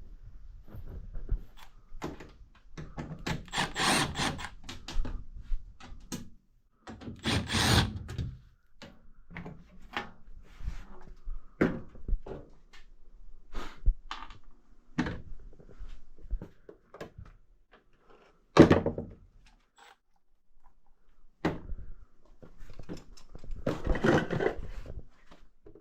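A string of knocks, clunks and scraping or rustling noises from objects being handled, with one sharp, loud knock about two-thirds of the way through.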